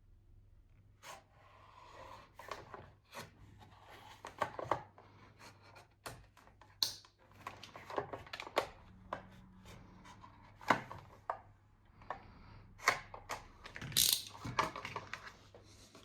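Cardboard and plastic blister packaging of a Hot Wheels die-cast car being handled and torn open: irregular clicks, crinkling and tearing, with the loudest crackles near the end.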